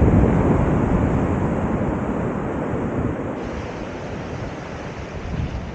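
Sea waves washing on the shore under gusting wind buffeting the microphone, loudest at the start and easing off gradually.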